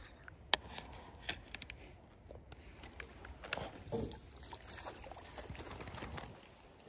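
Faint lapping and sloshing of water at the waterline, with a few light clicks and knocks.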